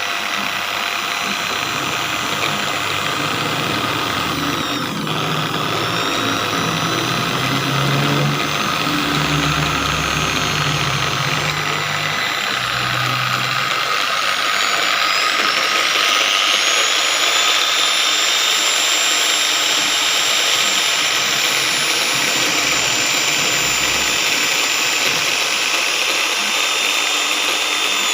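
Electric car polishing machine running steadily. Its high motor whine dips briefly about five seconds in, then climbs to a higher pitch about halfway through and holds there.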